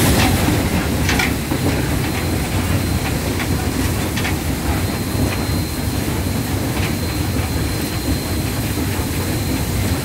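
Southern 4501, a 2-8-2 steam locomotive, running at speed, heard from inside its cab: a steady low rumble with occasional sharp clicks.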